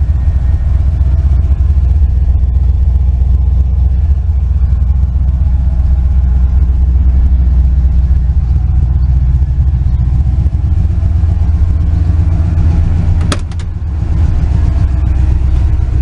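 1988 Mustang GT's 5.0-litre (302) small-block Ford V8 idling through stainless headers, an H-pipe and Mac Pro dump mufflers with turndowns: a loud, steady, deep exhaust rumble. A sharp click comes about 13 seconds in, with a brief drop in level.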